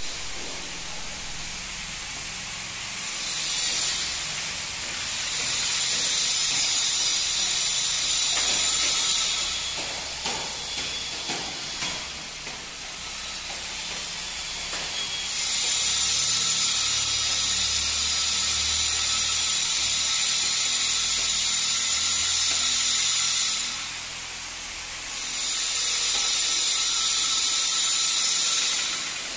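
Pleated mosquito net mesh being slid open and shut along its track by hand: a steady hiss that comes and goes in three long stretches, with a few light clicks between the first and second.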